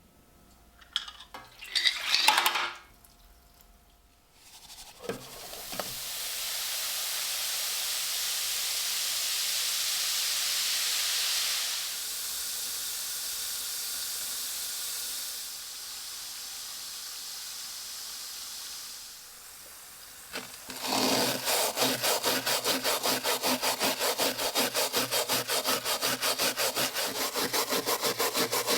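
A few handling knocks, then a long steady hiss of rubbing or abrading. About two-thirds of the way in, a hand saw starts cutting wood in quick, even back-and-forth strokes.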